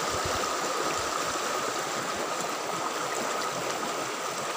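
Shallow stream water rushing steadily over stones.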